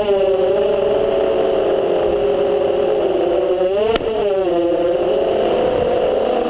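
FPV racing quadcopter's motors and propellers whining in flight, the pitch wavering up and down with the throttle. A sharp click about four seconds in, after which the pitch briefly dips and recovers.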